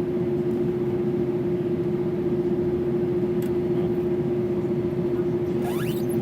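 Boeing 767-300ER jet engines running steadily: a continuous rumble carrying one constant tone. A brief faint rising whine comes near the end.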